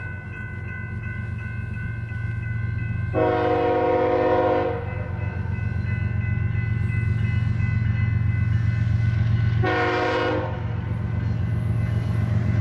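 Horn of an approaching BNSF GE ES44C4 freight locomotive sounding for a grade crossing: a long blast about three seconds in and a short blast about ten seconds in. Both sound over the low, steady rumble of the train, which grows louder as it nears.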